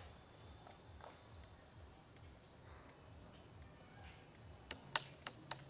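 Crickets chirping in a steady high trill, with scattered sharp clicks and a cluster of louder ones about five seconds in.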